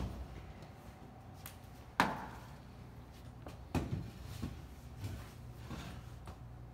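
A few scattered sharp knocks and taps from someone moving into a dark room, the loudest about two seconds in, over a faint steady low hum.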